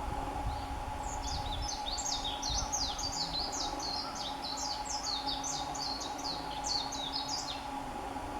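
A small songbird singing one long, rapid, jumbled high-pitched song, starting about a second in and lasting about seven seconds, over a faint steady hum.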